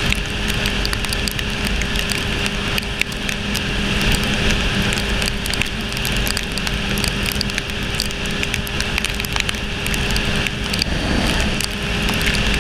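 Sport motorcycle cruising at steady speed on a wet road: a steady engine hum under the rush of wind and tyre spray, with raindrops ticking against the camera. The engine note shifts near the end.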